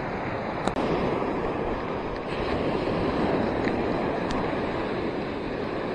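Gulf surf washing steadily onto the beach, with wind noise on the microphone.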